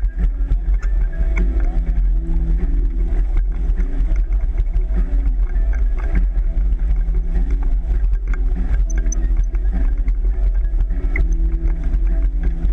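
Wind buffeting the microphone over the rush of water along the hull of an O'Day 25 sailboat heeled hard under sail at 6 to 7 knots.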